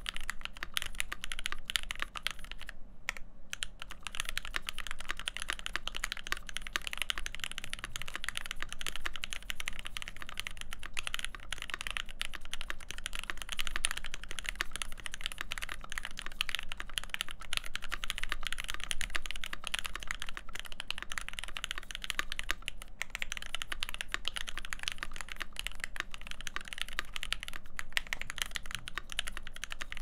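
Steady fast typing on an AEBoards Constellation custom mechanical keyboard, with lubed Alpaca V2 linear switches on a full brass plate and Hammerworks CRP keycaps. The keystrokes come densely, with a brief pause about three seconds in.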